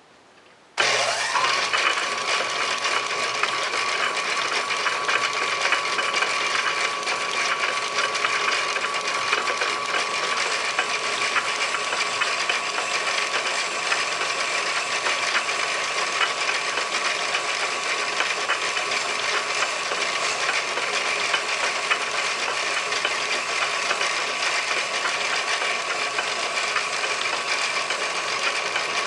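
Metal lathe starting about a second in, its motor whine rising quickly to a steady high tone, then running loud and steady with a fine rattle. A round-profile cutter is cutting piston-ring grooves into a cast brass piston.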